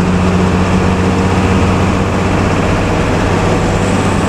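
Intercity bus under way: its engine runs with a steady low drone over continuous road and tyre noise.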